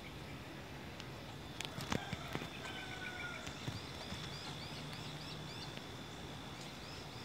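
Birds calling outdoors: a falling whistle and then a rapid run of short, high chirps, about five a second, through the middle, over a faint steady high tone. A couple of sharp knocks about two seconds in.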